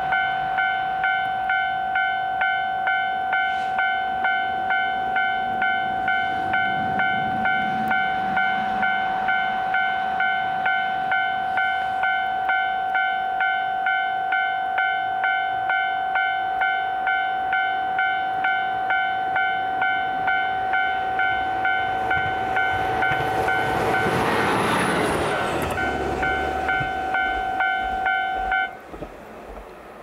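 Japanese level-crossing warning bell ringing in an even, repeating electronic ding, about one and a half strikes a second. About three quarters of the way in, a JR Hokkaido H100 'DECMO' diesel-electric railcar passes over the crossing with a brief rush of wheel and running noise. The bell stops suddenly near the end.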